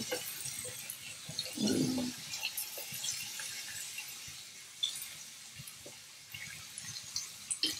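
Kielbasa, onions and mushrooms sizzling in a frying pan, with light clicks and scrapes of a wooden spoon stirring them.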